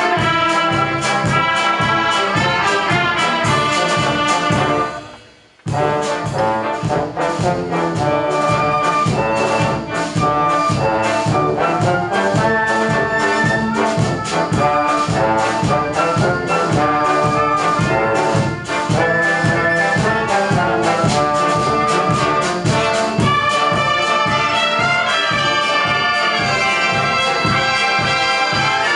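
Brass band of trumpets, trombones and tubas playing a piece together with a steady beat. The music stops for about a second, about five seconds in, then resumes.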